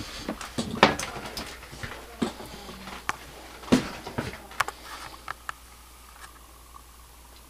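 A series of light clicks and knocks from the plastic toilet seat being handled on its snap-in hinges, the loudest about a second in and again near four seconds, dying away after about five and a half seconds.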